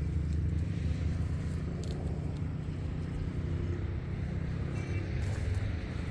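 Motor vehicle engine running steadily, a low drone.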